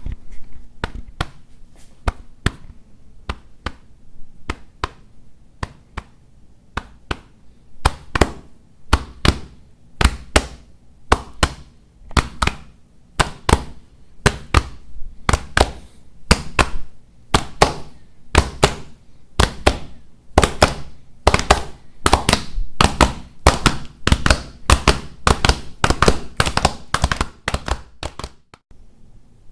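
Footsteps on a hard floor, recorded close for foley: a long run of sharp taps, about two a second, growing louder and busier partway through and stopping abruptly near the end.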